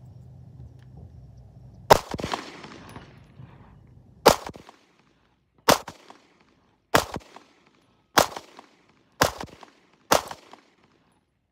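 Walther PPS M2 9mm pistol firing seven shots, about one to two seconds apart, each a sharp crack with a short echo.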